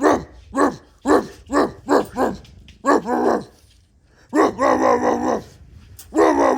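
Dog barking: a quick series of short barks, then a few longer, drawn-out barks, one lasting about a second.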